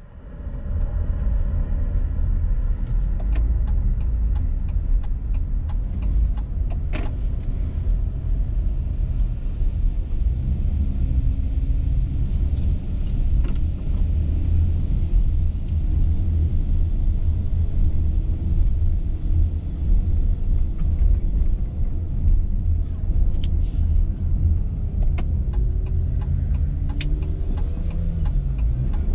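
Car driving, heard from inside the car: a steady low rumble of road and engine. The engine note rises near the end, and small ticks and rattles come and go throughout.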